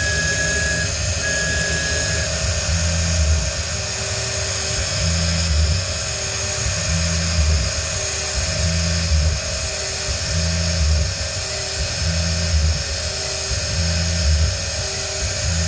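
Tormach 440 CNC mill spindle running with a steady high whine while machining holes in an aluminium plate. A heavier low pulse comes about every two seconds as the cutting cycle repeats.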